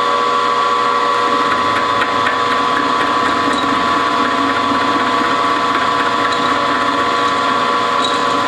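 Harbor Freight 6x26 bench milling machine running, a steady whine from its spindle and drive while the end mill cuts steel at a welded joint on a shaft.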